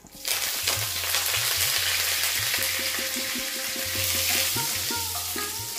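Curry leaves and green chillies hitting hot oil in a nonstick kadai, sizzling and spitting loudly as a spice tempering, then stirred with a spatula. The sizzle starts suddenly about a quarter second in and eases off near the end.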